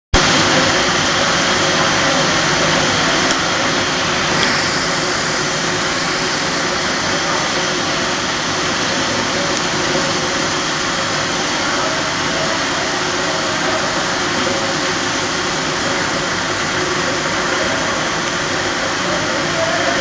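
Polypropylene baler twine extrusion line running: a steady, even machine noise.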